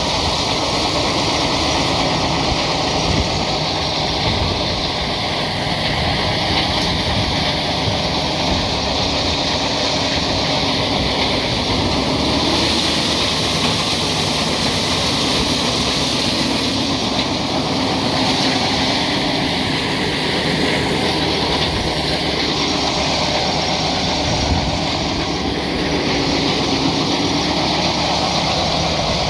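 Horse-powered corn sheller running steadily as it shells ear corn: a continuous mechanical clatter and rattle, with shelled kernels pouring into a wooden wagon box.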